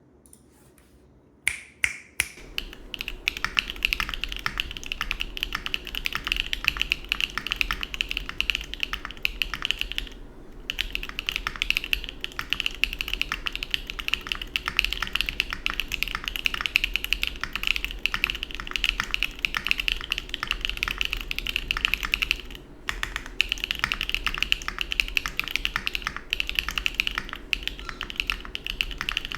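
Fast, continuous typing on a Mode Envoy mechanical keyboard with stock EPOMAKER Peace Lily switches, Aifei doubleshot ABS keycaps, an FR4 plate and lattice mount, giving a clocky keystroke sound. A few single key presses start it off, then rapid typing runs on with two brief pauses.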